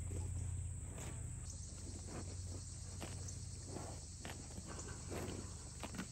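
Pasture ambience: insects trilling steadily in the grass, the trill setting in about a second and a half in, with scattered soft rustles and thumps of calves shifting their hooves on the grass.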